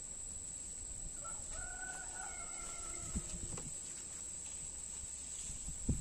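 A rooster crowing once, a single long call held for about two and a half seconds starting about a second in, over a steady high-pitched whine. A dull knock comes near the end.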